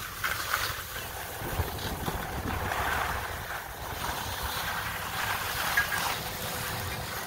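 Skis sliding over packed snow, a steady hiss and scrape, with wind rumbling on the microphone.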